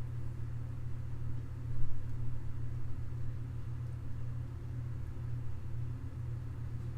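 Steady low hum of background noise, with no other clear event standing out.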